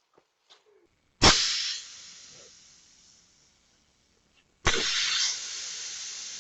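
Two sudden loud bursts about three and a half seconds apart, each a sharp bang that turns into a hiss fading away over a second or two.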